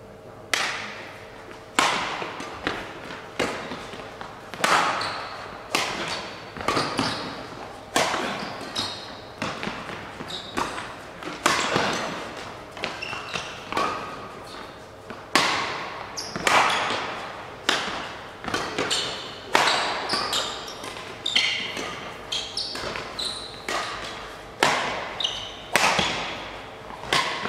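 Badminton rally: a shuttlecock struck back and forth with rackets about once a second, each sharp hit echoing in a large hall. Short high shoe squeaks on the court floor between hits.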